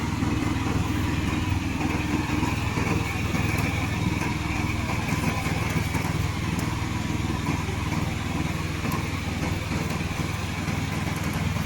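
Remote-control slope mower's engine running steadily, a continuous even drone with a faint higher whine over it.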